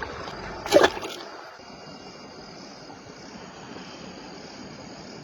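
Crickets chirping steadily as a thin high band over a stream trickling and flowing. A short, sharp louder sound comes just under a second in.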